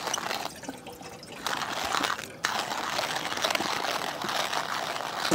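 Water being poured from a container: a short pour, a brief pause, then a steady pour from about two and a half seconds in.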